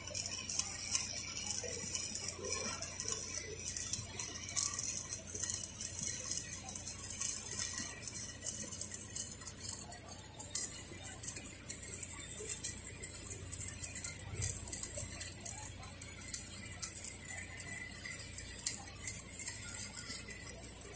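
Stick-welding (SMAW) arc on a steel pipe joint, crackling steadily as the electrode burns.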